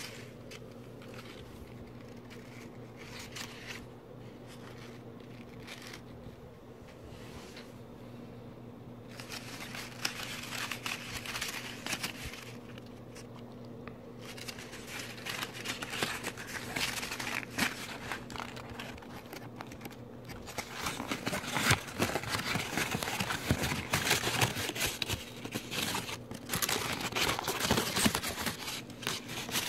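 A hand crumpling and crinkling a wad of orange paper, sparse at first, then louder and nearly continuous from about two-thirds in as the paper is pressed right up to the microphone. A steady low hum sits underneath until then.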